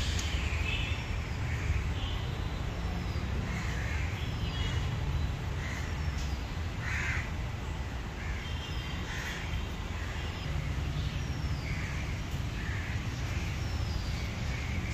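Birds calling repeatedly, short calls about once a second with a few thin descending chirps, over a steady low rumble.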